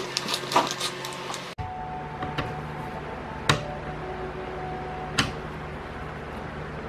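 Small metallic clicks of screws and a screwdriver as the induction cooker's coil is unscrewed. A quick cluster of clicks comes in the first second or so, then three sharper single clicks spread over the next few seconds above a steady low hum.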